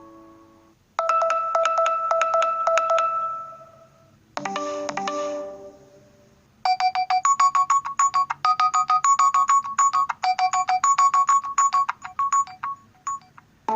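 Nokia G21 smartphone alarm tones played one after another, each cut short: a tone fading out at the start, a run of quick repeated ringing notes for about three seconds, a short chime, then a fast electronic beeping melody for the last six seconds or so.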